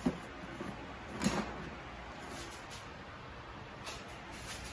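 Plastic top cover of a DeWalt DW735X thickness planer being handled and lifted off: a sharp click at the start and a louder knock about a second in, then faint room tone.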